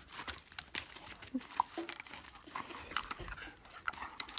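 Border Collie moving about on loose gravel: scattered faint crunches and scuffs from her paws, with a few brief dog noises.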